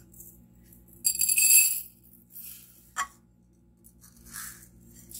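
Raw rice poured from a small brass measuring cup into a steel bowl: a burst of grains rattling and ringing against the metal about a second in, lasting just under a second. A single sharp clink of metal on metal follows near the middle, then a few lighter rustles.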